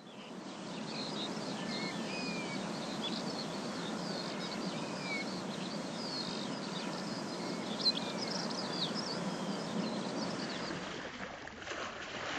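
Outdoor ambience: many birds chirping over a steady low noisy rumble, fading in at the start.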